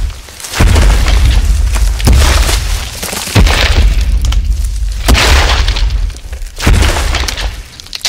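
A cinematic dinosaur sound effect: a series of deep booming hits with heavy low rumble and a crashing tail after each, about one every second and a half.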